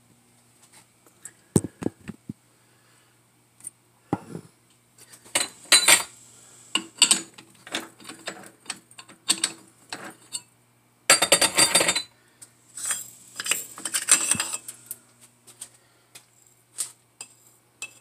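Irregular clinks and rattles of a cut-open aluminium receiver-dryer tube being handled, its loose desiccant beads shifting and spilling against metal, with a denser rattle lasting about a second past the middle.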